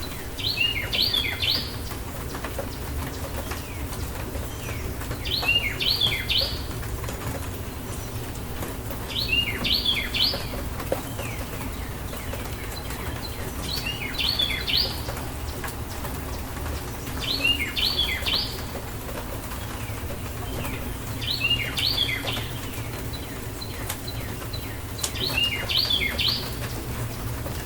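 A songbird sings the same short phrase of a few quick notes seven times, about every four seconds, over a steady background of rain and a low rumble.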